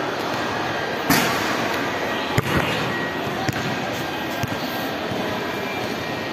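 A basketball striking the hoop about a second in with a brief ring, then bouncing on a hard floor with a sharp knock and a few fainter bounces, over a steady background din.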